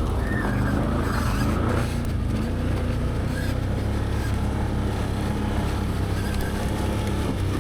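Can-Am Outlander 850XT ATV's Rotax V-twin engine running steadily under way in high range.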